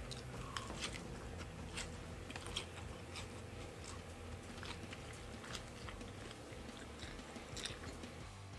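A man biting into and chewing a section of vegan burger with lettuce: irregular soft clicks and crunches of chewing over a faint low hum.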